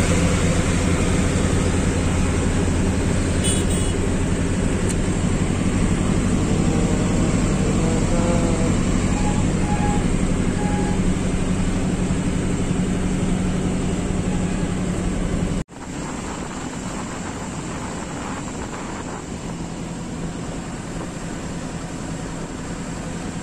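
Eicher truck's diesel engine running steadily as the loaded truck drives, heard from inside the cab with road and wind noise. About sixteen seconds in the sound cuts out abruptly, then carries on somewhat quieter.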